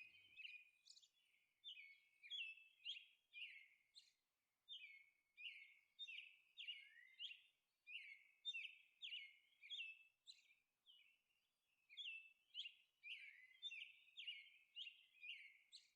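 Faint bird chirping: a run of short, high chirps, each dropping quickly in pitch, about two a second.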